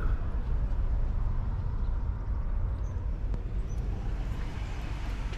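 Steady low rumble of a vehicle, with no distinct events.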